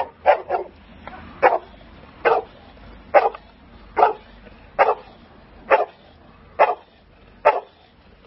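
Boxer dog barking in a steady rhythm of about one bark a second, after a quick run of three at the start: the bark-and-hold of protection training, guarding a helper in a blind.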